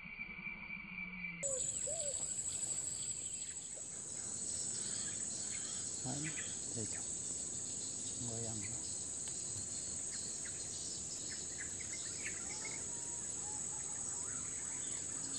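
Insects buzzing in a steady, high, even drone, starting about a second and a half in.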